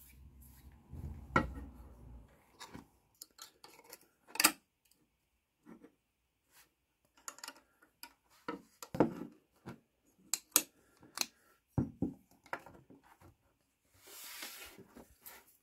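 Handling noise of a Mauser K98 bayonet and its grip panels on a wooden workbench: irregular light clicks and knocks of metal and hard grip parts, with rubbing and sliding in the first two seconds and again about fourteen seconds in.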